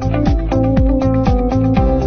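Background music with a steady beat and a gliding electronic bass.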